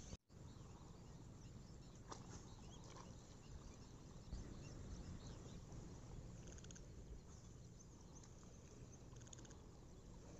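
Near silence: faint outdoor ambience, with a short, rapidly pulsed animal trill heard twice in the second half, about three seconds apart.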